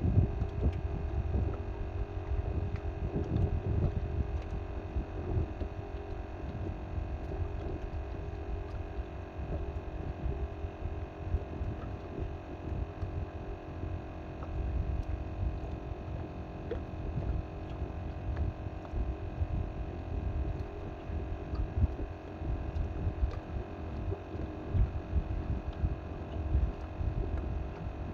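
A steady hum made of several fixed tones, under an uneven low rumble that keeps rising and falling, typical of wind buffeting the microphone on an open boat.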